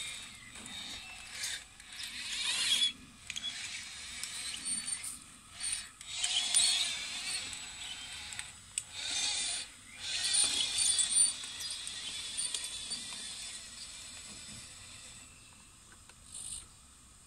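1:14-scale RC Caterpillar 973 track loader working: its small electric motors and gears whine and its metal tracks clatter in stop-start spells a second or two long, with short pauses between. It quietens over the last couple of seconds.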